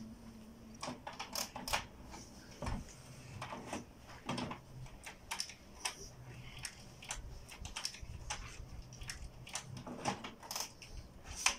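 HP Smart Tank 515 inkjet printer running its mechanism after a restarted print job: irregular clicks and clatters from the carriage and gears over a faint motor hum.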